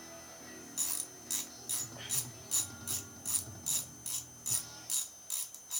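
Hand socket ratchet being worked in quick short swings, its pawl clicking in a regular rhythm of about two to three bursts a second, starting about a second in.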